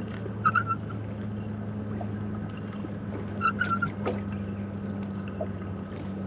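Sound picked up by an underwater camera: a steady low hum under a water hiss, with a few short clicks and squeaky chirps, the clearest about half a second in and again a little after three seconds.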